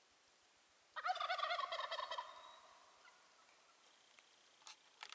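Wild turkey tom gobbling once, a rapid rattling call that starts about a second in and trails off after about a second and a half. A few faint clicks follow near the end.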